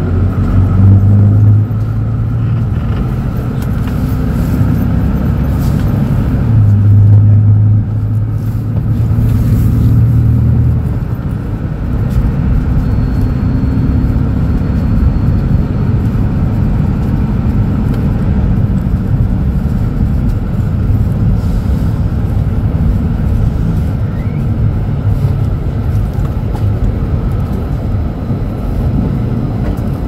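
Mercedes-Benz OM936LA six-cylinder diesel engine of an O500U city bus, heard from inside the passenger cabin as the bus drives. It runs with a deep, steady drone that swells louder in the first couple of seconds and again from about seven to eleven seconds in, then runs on more evenly.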